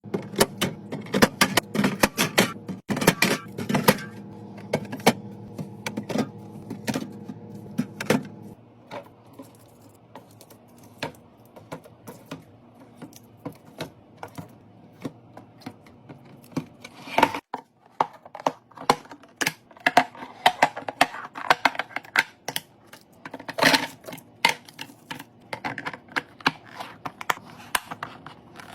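Many quick clicks, taps and knocks of containers and food items being handled and set down while a fridge is restocked. A steady hum runs under the first eight seconds and stops abruptly.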